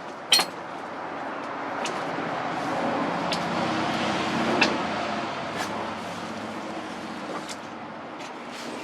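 A passing road vehicle, its noise swelling over several seconds and then fading, with a few sharp knocks.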